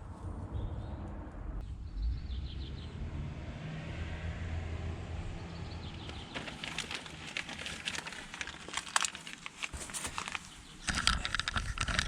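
Low outdoor rumble with a few faint bird chirps, then from about six seconds in a run of crackling, rustling and rubbing: a vinyl boat-name decal being peeled from its backing and pressed onto the fibreglass hull.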